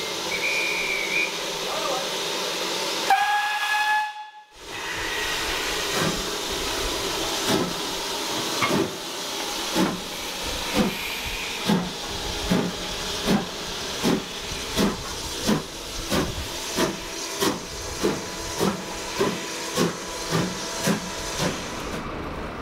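A short high whistle blast, then a brief steam-locomotive whistle. After that a steam locomotive pulls away: steady exhaust chuffs a little over one a second, over a constant steam hiss.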